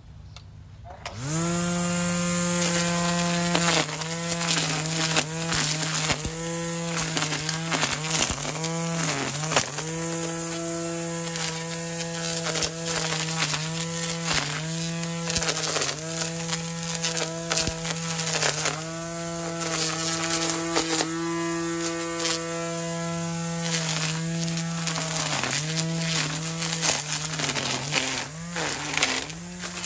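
Hart 40-volt cordless string trimmer's electric motor spinning up about a second in, then running with a steady whine that dips in pitch and recovers again and again, with scattered clicks. Its cutting line is nearly used up.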